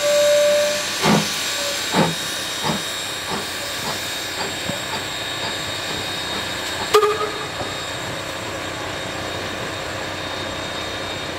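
Queensland Railways PB15-class steam locomotive pulling away under steam: a steady hiss of steam with exhaust beats about a second apart that quicken and merge into a continuous rush. There is a short tone at the very start and a single sharp bang about seven seconds in.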